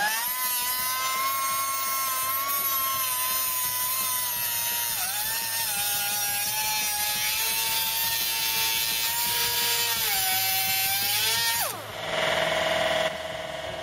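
Angle grinder cutting through car-body sheet steel to free a donor panel from its spot welds. Its motor whine holds steady, drops in pitch twice as the disc bites, then winds down near the end.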